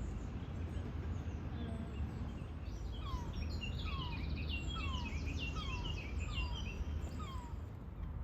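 Small songbirds singing for several seconds, a busy run of high chirps and trills with about six short downward-sliding notes, over a steady low rumble of background noise.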